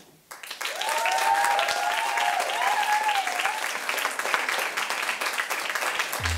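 Audience applauding, breaking out just after the start, with voices whooping and cheering over the clapping for the first few seconds.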